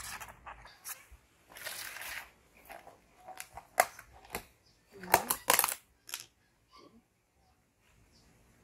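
A plastic food container being handled on a table: rustling, then a series of sharp clicks and knocks, the loudest about four and five seconds in.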